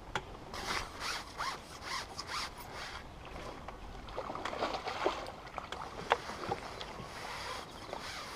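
Rubbing and scraping from a carbon fishing pole and its sections being handled while a hooked fish is played, with a few sharp clicks, one louder click about six seconds in.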